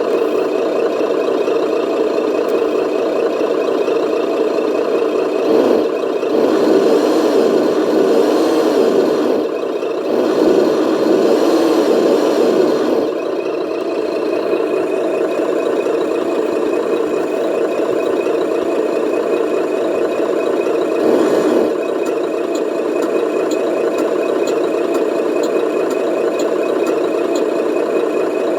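RC truck's electric drive motor and plastic gearbox whirring with a rattle. For a few seconds in the first half the pitch rises and falls repeatedly as the speed changes.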